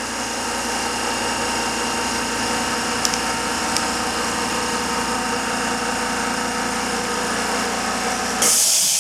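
A small airbrush compressor's motor running with a steady hum. About eight and a half seconds in the motor stops and a loud hiss of air takes over.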